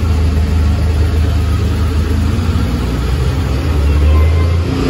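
Arctic Cat Wildcat side-by-side's engine idling steadily, heard from the cab, a deep even rumble that swells slightly near the end.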